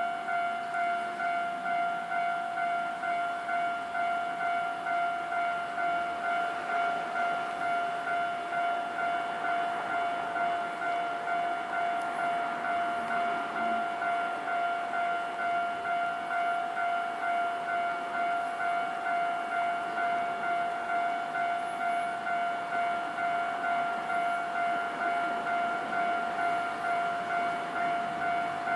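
Japanese railway level crossing's electronic warning bell ringing steadily, a pitched 'kan-kan' tone repeating about twice a second. It signals that a train is approaching the crossing.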